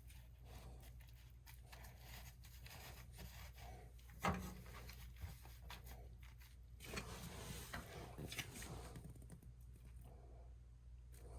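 Faint scattered rustles and small knocks, with one sharper knock about four seconds in and a louder rustling stretch around seven to nine seconds, over a low steady hum.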